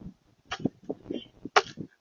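Irregular taps, knocks and scrapes of animals feeding at a bird feeder, several sharp clicks in quick succession with low rustling between.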